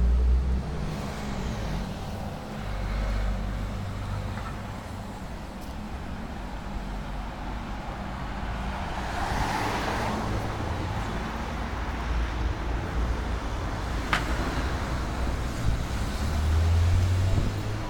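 City street traffic: cars and a bus driving past, with the noise swelling as a vehicle goes by about nine to ten seconds in. A single sharp click near the fourteen-second mark.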